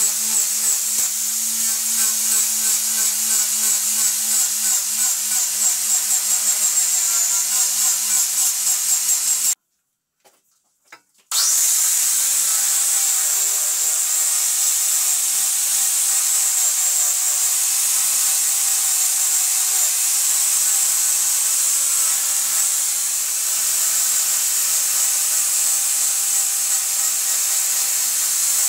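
Angle grinder with a sanding disc on a backing pad running and sanding the live edge of an ash slab: a steady high whine with a rubbing hiss that pulses in loudness as the disc is worked along the wood. About ten seconds in the sound cuts out abruptly for under two seconds, then the grinder runs on steadily.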